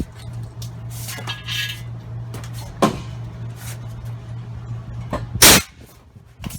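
Tire-changing work on a 22.5-inch truck tire: scattered metal knocks and clanks of tire bars against the wheel over a steady low hum, the loudest a sharp hit about five seconds in.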